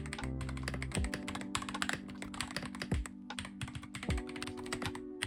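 Typing sound test on an AULA F98 Pro mechanical keyboard with pre-lubricated switches: a fast, continuous run of key clacks. Quiet background music with held chords plays under it.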